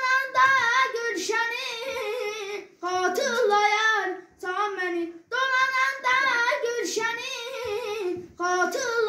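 A boy singing solo and unaccompanied, in phrases broken by short breaths, his voice wavering in pitch on the held notes.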